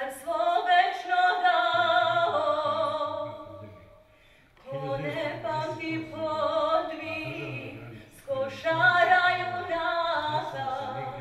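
A song: a singer's melody of long held notes over a bass accompaniment that comes in about two seconds in. The music dips almost to silence for a moment about four seconds in, then resumes.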